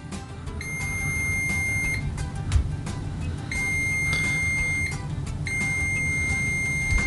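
PTM19A smart multimeter's continuity beeper sounding three times, each a steady high-pitched beep of about a second and a half, as the test leads are touched together. Each beep comes in a second or so after contact, the slow continuity response of this meter.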